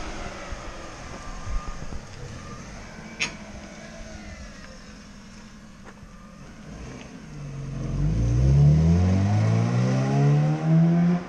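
A vehicle's engine revving up as it accelerates away. It is quiet at first, then rises steeply in pitch and loudness during the last few seconds, with a brief dip near the end.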